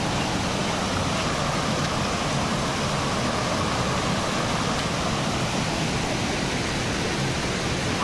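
Small waterfall cascades: water spilling over rock ledges and a low stone weir into a pool, a steady, even rush of falling water.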